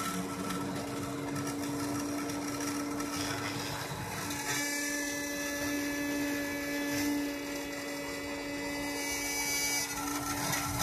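Mini rotary tool spinning with a steady whine as it engraves on a homemade CNC engraver, with the machine's stepper motors whining alongside. The higher tones shift about halfway through and again near the end as the axes change their moves.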